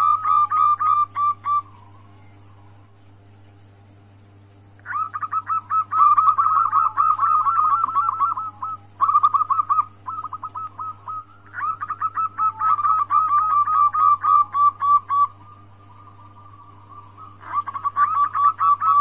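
Zebra dove (perkutut) calling in bouts of rapid, clipped notes a few seconds long with short pauses between, a female's call used to lure a male into breeding condition. Behind it a faint high ticking repeats about three or four times a second.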